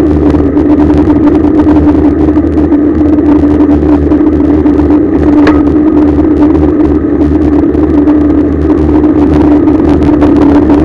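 Loud, steady rush of wind and road rumble picked up by a camera mounted on a moving road bicycle, with a steady hum throughout.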